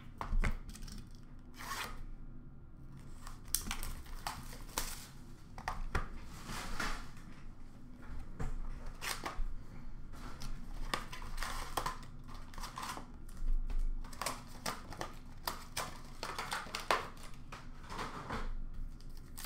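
Trading card packs being torn open and handled: wrappers crinkling and tearing in irregular crackles, with cards and packs rustling.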